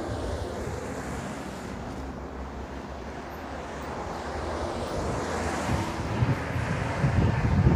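Outdoor roadside noise of passing traffic with wind on the microphone. The hiss swells about halfway through as a vehicle goes by, and low wind rumble on the microphone grows loud near the end.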